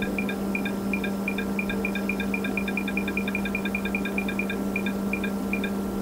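BioLase WaterLase dental laser running: its pump hums steadily under a quick, irregular run of short high clicks, fastest in the middle and stopping shortly before the end. The clicking goes with adjusting the laser's intensity and delivering the laser energy.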